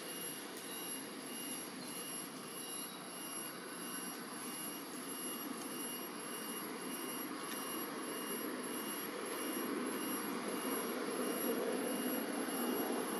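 Steady outdoor background rumble that grows louder over the last few seconds, with a thin, high, steady insect drone above it.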